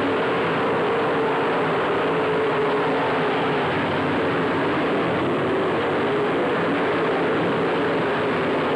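Several late model race car engines running as the cars circle the track: a steady din in which engine notes rise and fall as cars pass.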